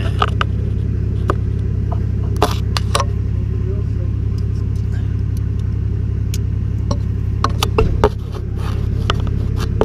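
Mitsubishi 4M40 2.8-litre turbo diesel idling steadily, with a few light metallic clicks as a screwdriver pushes the pin back into the injection pump's boost compensator.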